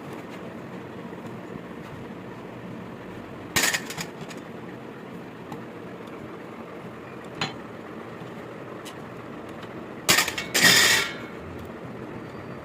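Metal tools or parts clinking and knocking against each other: a few separate sharp strikes, then near the end a couple of strikes and a brief rattling clatter, the loudest sound here, over a steady background noise.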